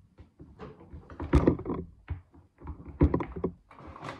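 Kitchen knife cutting dental chew sticks on a cutting board: a series of irregular knocks as the blade goes through the chews and strikes the board, the loudest about a second in and again about three seconds in.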